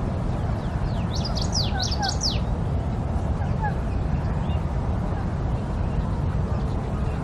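Small birds chirping: a quick cluster of sharp, high chirps about a second in, then a few faint scattered chirps, over a steady low rumble of background noise.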